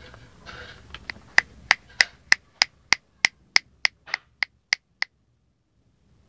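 A run of sharp, evenly spaced clicks, about three a second, that stops suddenly about five seconds in.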